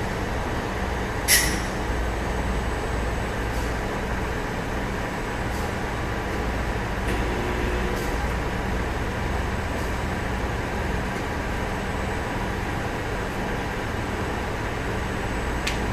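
CNC roll-up door spring machine running with a steady mechanical hum, one short sharp hiss about a second in and a few faint ticks.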